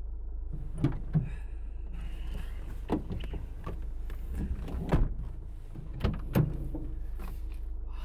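Car door and cabin clunks as someone gets into a car: about six separate knocks, the loudest about five and six and a half seconds in, over a steady low engine hum.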